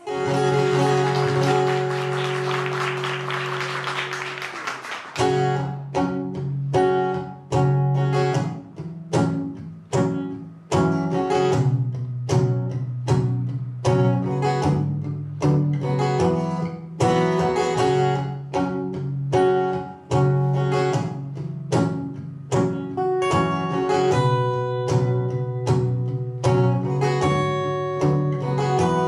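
Solo acoustic guitar, a Lowden F-23. A chord rings out for about five seconds. Then comes an even rhythm of short picked chords, each cut off before the next.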